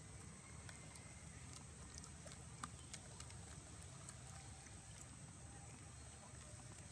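Near silence: faint outdoor room tone with a low rumble, a thin steady high-pitched hiss and a few soft scattered clicks.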